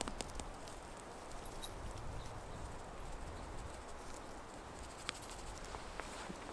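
Sausages cooking on a grill over a small wood fire: a steady faint hiss with a few scattered crackles and pops.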